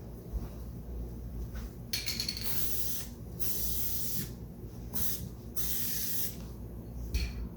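Aerosol spray-adhesive can spraying in five hissing bursts, the longer ones about a second each.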